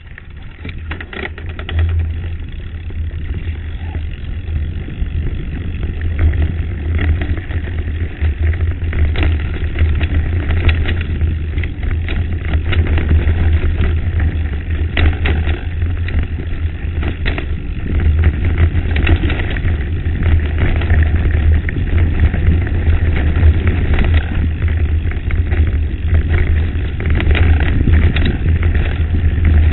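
Wind buffeting the camera microphone with a heavy low rumble, over the rattle and crunch of a mountain bike descending a rocky gravel track, with many irregular sharp jolts. It starts quieter and builds over the first few seconds as the bike picks up speed.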